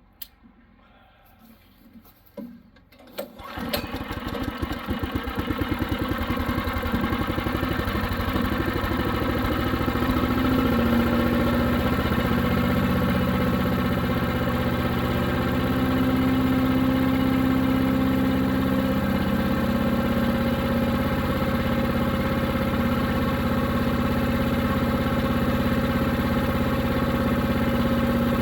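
A new Harbor Freight Predator 212 single-cylinder engine on a chipper shredder is started: a few short clicks, then it catches about three and a half seconds in. After that it runs at a steady, even speed.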